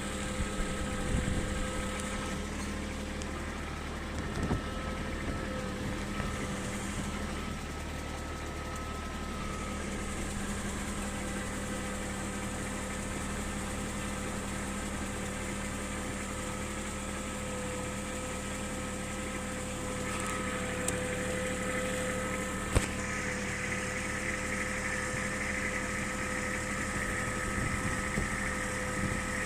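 An engine runs steadily with a constant hum and a few knocks and clicks, one sharp click about 23 seconds in.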